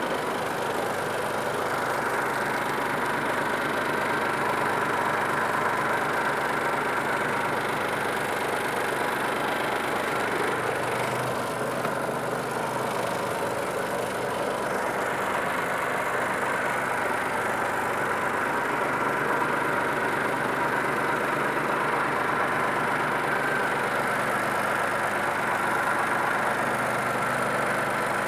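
Scania 112 truck's 11-litre straight-six diesel running steadily, heard from inside the cab.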